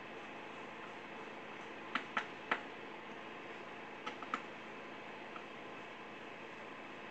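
Sharp light clicks of a small hand tool and parts being handled on a partly stripped Husqvarna 394 XP chainsaw: three about two seconds in and two more about four seconds in, over a steady low hiss.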